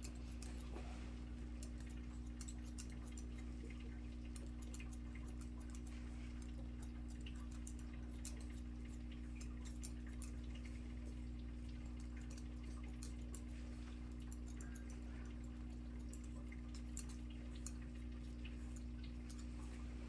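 Barber's scissors snipping hair in quick, irregular clicks, over a steady low hum.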